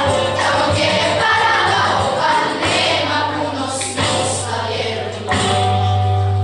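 Children's school choir singing, mixed girls' and boys' voices, over a steady low bass accompaniment that grows stronger about five seconds in.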